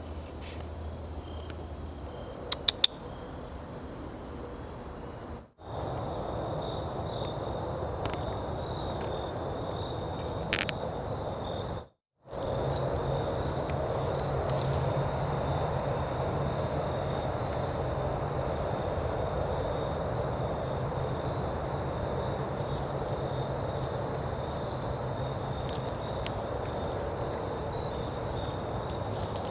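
Night insect chorus in the woods, a steady high-pitched trill, with a few faint clicks about three seconds in. The sound cuts out briefly twice.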